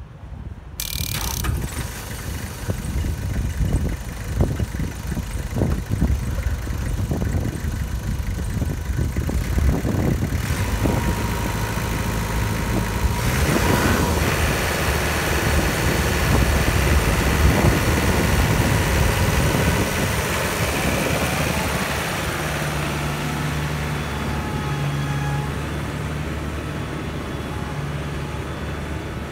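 A 1999 Kubota M9000 tractor's four-cylinder diesel engine starts about a second in and runs, unevenly at first, then more steadily. Near the end the tractor drives off and the engine sound grows fainter.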